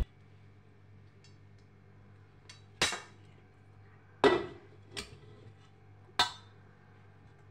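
Four sharp clacks of kitchenware being handled, with a short ring after each, coming roughly a second apart from about three seconds in.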